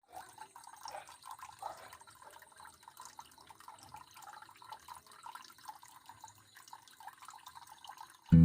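Water trickling and dripping from a small homemade plastic-bottle waterfall fountain, a quiet uneven patter of small splashes. Acoustic guitar music starts right at the end.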